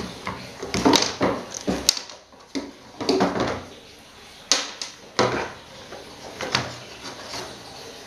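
Clatter and scraping of hard plastic fan parts handled with a screwdriver and pliers while an old table fan's base is taken apart, in a string of irregular knocks and scrapes.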